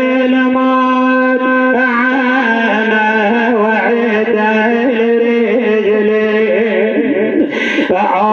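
Arabic mourning lament chanted by voices: a long held note under wavering, ornamented melodic lines, with a brief breathy hiss near the end.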